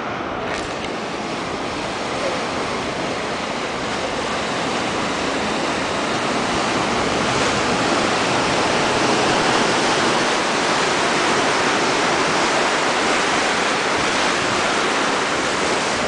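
Ocean surf breaking and washing in rough water, a dense, steady rush that grows louder over the first several seconds and then holds.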